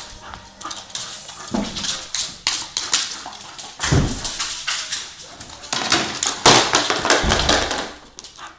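Bull terrier racing around the room: its claws scrabble and its paws thud on a hard wood floor in a quick, uneven run of clicks and knocks. Heavier thumps come about four seconds in and twice near seven seconds.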